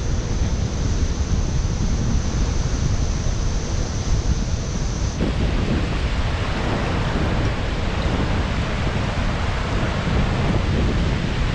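Wind buffeting the microphone over rushing water. About five seconds in the sound changes to a brighter, hissier rush of whitewater rapids below a waterfall.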